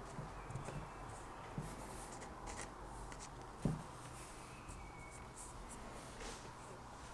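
Faint rustling and rubbing of a strip of vacuum-cleaner-bag filter material being folded and handled on a wooden table. A soft knock about three and a half seconds in is the loudest sound.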